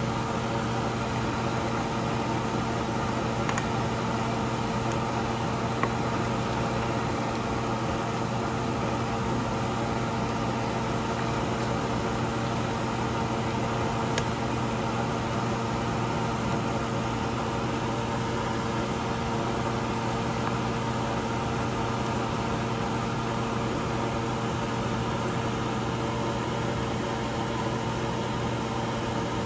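Steady kitchen appliance hum with a few low held tones, and a faint tick about six seconds in and again about fourteen seconds in.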